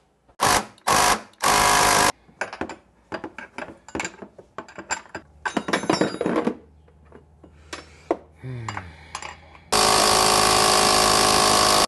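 Cordless impact driver driving a bolt into a side-by-side's chassis. It gives three short bursts at the start, then there is clattering of tools and hardware, and near the end it runs hard for about two seconds without stopping.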